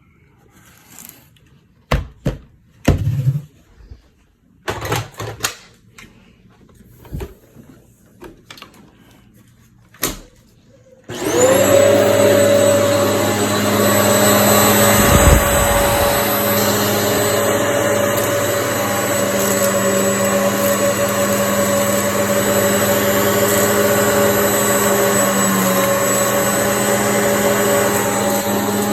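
A few scattered knocks and clatters. Then, about eleven seconds in, a vacuum cleaner switches on and runs steadily with a whine.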